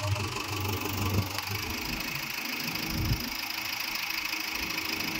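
JCB backhoe loader's diesel engine idling low, under a steady hiss, with one dull thump about three seconds in.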